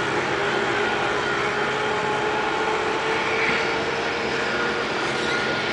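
Boeing 737-200's Pratt & Whitney JT8D turbofan engines running as the jet lands: a steady rushing noise with several whining engine tones over it.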